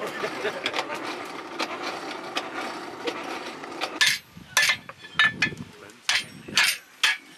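Blacksmith's hammer striking red-hot steel on an anvil: about six sharp, ringing blows roughly two a second, starting about four seconds in. Before the blows there is a steady background din.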